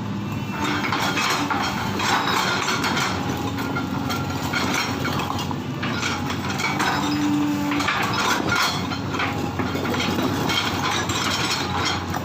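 Hydraulic excavator at work: its diesel engine runs with a steady drone, under repeated clanking and scraping from the machine as it works.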